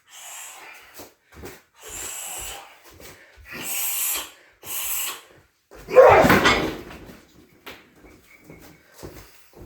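Shin kicks landing on a Thai pad strapped to a car tyre on a heavy boxing stand: several lighter hits, then one loud, heavy thud about six seconds in, followed by small knocks.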